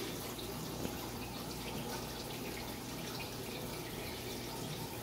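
Aquarium water trickling and splashing steadily, over a steady low hum, with one sharp click just under a second in.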